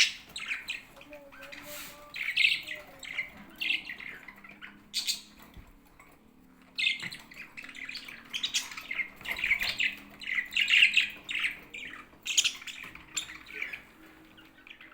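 Pet budgerigars chattering, with many short chirps and squawks coming in quick bursts and a brief lull partway through.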